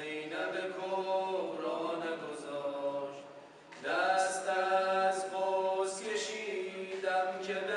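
Male a cappella chanting of a tawashih, an Islamic devotional nasheed, with long held notes. The singing dies down near the middle and comes back louder a moment later.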